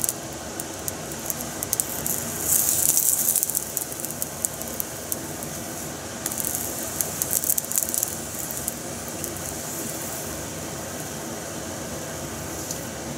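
Oil sizzling and crackling in a frying pan as a round slice of food fries, a steady hiss with fine pops. Two louder spells of popping come a few seconds in and again around the middle, when the slice is turned over with chopsticks.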